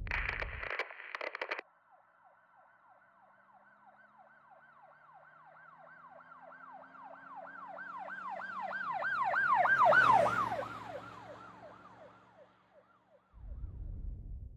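Emergency vehicle siren in a fast yelp, about three sweeps a second, growing louder to a peak about ten seconds in and then fading as the vehicle passes. Its engine and tyre rush come through at the closest point. Brief bursts of street noise sit at the very start and near the end.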